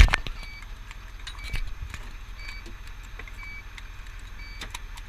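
Fire engine running, heard from inside the cab as a steady low rumble, with rattles and knocks from the cab and a sharp knock right at the start. A faint short electronic beep repeats about once a second.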